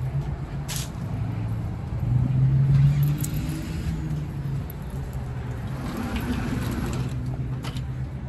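A motor vehicle's engine running close by, a steady low hum that is loudest about two to three seconds in, with a few light clicks over it.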